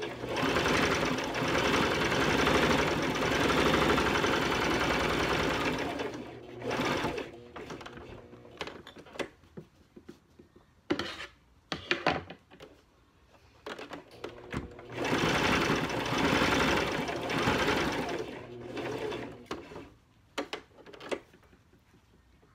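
Brother electric sewing machine stitching through fabric: one steady run of rapid needle strokes lasting about six seconds, a few brief bursts and clicks, then another steady run starting about fifteen seconds in and lasting about five seconds.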